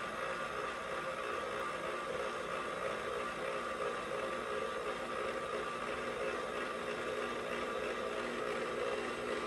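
KitchenAid stand mixer running steadily, its motor whirring as it mixes pumpernickel bagel dough in the steel bowl.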